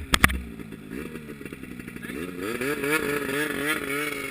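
Two-stroke snowmobile engine running, its pitch sweeping and wavering up and down as the throttle changes. A few sharp clicks come right at the start.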